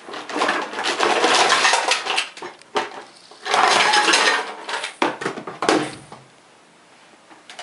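Plastic toys clattering and rattling against each other and a plastic tub as a toddler rummages through them, then a second spell of clatter as the tub is tipped out and the toys tumble onto the carpet.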